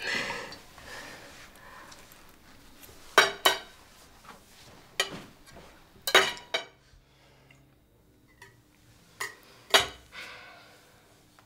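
Glassware and dishes clinking at a dinner table: a handful of short, sharp clinks and knocks spread over several seconds, as a glass carafe is handled and a drink is poured into a glass.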